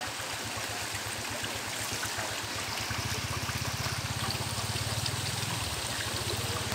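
Water trickling and running in a fish pond, with a low, rapid throbbing underneath that grows stronger about three seconds in.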